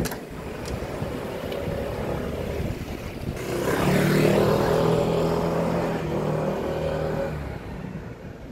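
A motor vehicle's engine passing on the street, getting louder about three and a half seconds in and fading away near the end, over steady street noise.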